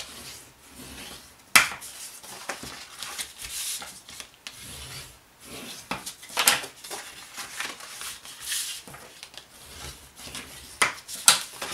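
Bone folder scraping along the score lines of kraft cardstock, creasing the folds: repeated rubbing strokes on paper, with sharp creasing snaps about a second and a half in, midway, and twice near the end.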